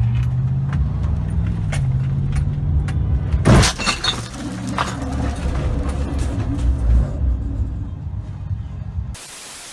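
Car collision heard from inside a moving car: steady engine and road noise, then one loud crash of impact about three and a half seconds in, followed by a second or so of debris clattering. A short burst of hiss near the end.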